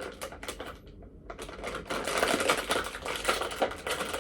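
Crinkly plastic snack packet being handled and pulled open, a rapid run of crackling clicks that grows louder from about a second and a half in.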